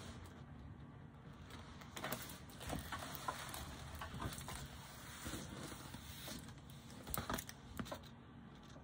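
Faint rustling and crackling of a diamond-painting canvas's clear plastic film and paper cover sheet being handled, in scattered bursts, the loudest cluster near the end.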